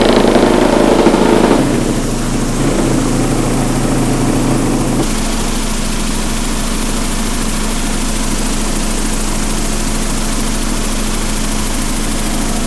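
Giant GB3 vibratory tumbler running loaded with ceramic media: its motor and offset weight give a steady mechanical hum while the media churns in the bowl. It is louder for the first second and a half, and turns hissier about five seconds in.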